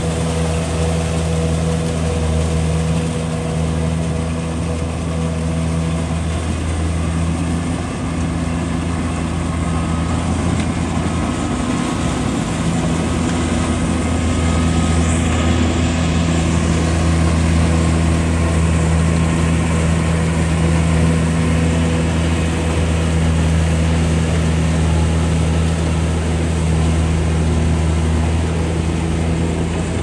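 Kubota combine harvester's diesel engine and threshing machinery running steadily while cutting rice: a low, even drone at constant pitch, growing slightly louder about halfway through.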